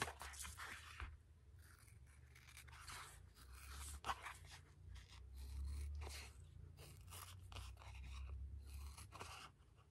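Scissors cutting through a sheet of craft foam: a string of quiet, irregular snips and crunches as the blades close, over a low hum.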